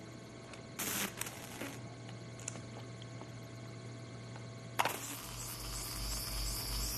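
Small clicks and clatter of hands working on a wired-up electrical apparatus, then a sharp click about five seconds in as the apparatus switches on and starts a steady electric hum with a low pulsing and a faint high whine.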